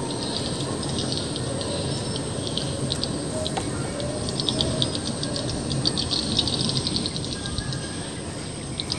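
Small birds chirping in many short, rapid high notes over a steady low outdoor rush.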